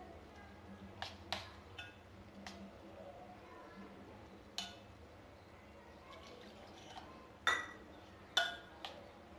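A metal spoon clinking and scraping against a stainless steel bowl while stirring a semolina-and-yogurt batter as water is worked in. The clinks come irregularly, each with a short metallic ring, and the two loudest fall near the end.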